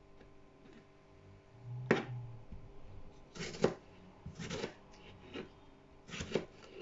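Kitchen knife cutting tomatoes on a plastic cutting board. A sharp knock comes about two seconds in, then short runs of slicing and tapping strokes against the board about a second apart.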